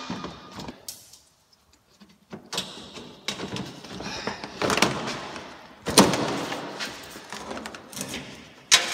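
Plastic under-engine skid plate being worked free and pulled down: a series of sharp clacks and thunks of plastic, the loudest about six seconds in.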